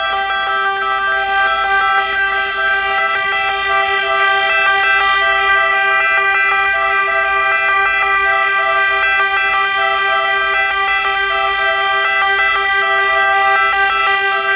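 Several fire engines sounding their horns together in one long, unbroken chord of steady pitches, a salute for a fallen firefighter, with a crowd applauding over it.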